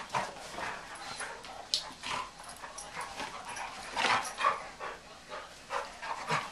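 Two Brittany dogs play-wrestling, their scuffling and short dog noises coming in irregular bursts.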